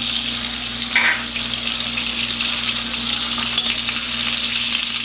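Steak frying in butter in a pan: a steady sizzle, with one brief louder crackle about a second in.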